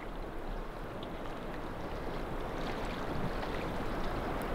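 Steady rushing of a flowing river, growing slightly louder.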